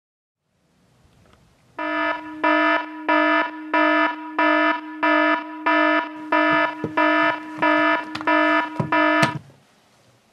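Philips clock radio alarm beeping: an electronic tone pulsing about one and a half times a second. It starts about two seconds in and cuts off suddenly near the end, with a few soft knocks just before it stops.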